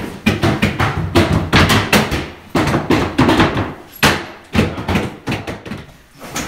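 Repeated knocks, thuds and scuffs of a fibreglassed cedar-strip canoe hull being handled by several people and set down on a wooden cradle.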